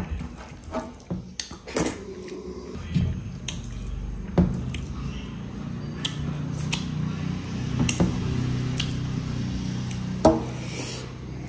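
Close-up eating sounds of mutton and rice: scattered sharp clicks and clinks of a plate and utensils, with chewing, over a low steady hum.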